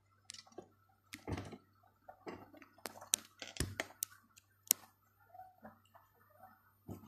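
Glass bottles being handled and set down: a run of irregular clicks and knocks, the loudest a little over halfway through.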